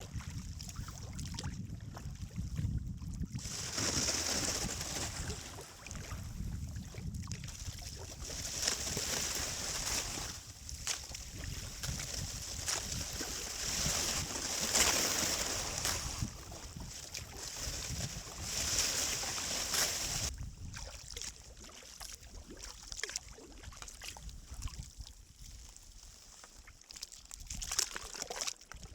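Kayak paddle strokes: splashing water in surges about every four to five seconds, quieter from about twenty seconds in. Low wind rumble on the microphone at the start.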